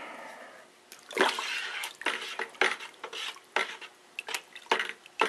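Spoon stirring chopped apples and water in a plastic bucket, mixing yeast into the apple wine mash: irregular sloshing and splashing that starts about a second in.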